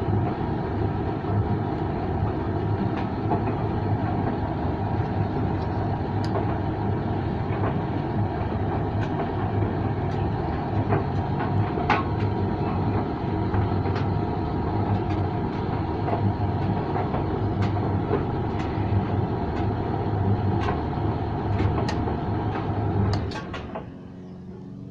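Creda 37762G tumble dryer running: a steady drum and motor rumble with a strong low hum and scattered light clicks. About a second before the end the sound drops sharply to a much quieter hum.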